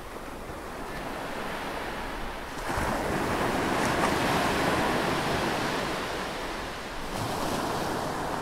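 A steady rushing noise like surf, swelling about three seconds in, easing a little around seven seconds, then rising again.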